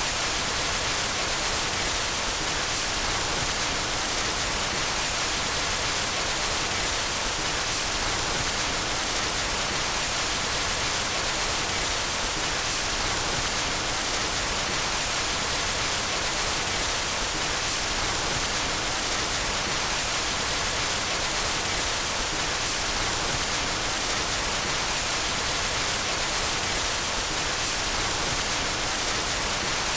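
Steady white noise: an even hiss with most of its energy in the upper range, unchanging.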